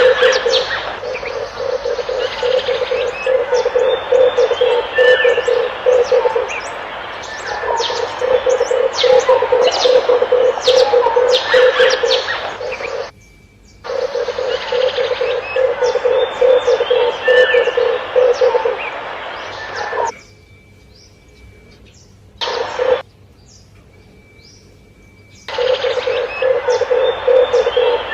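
Red turtle dove cooing in long runs of rapid, low, pulsing coos, with smaller birds chirping over it. The sound cuts out abruptly for about a second near the middle and again for about five seconds later on, with only a brief burst of cooing in between.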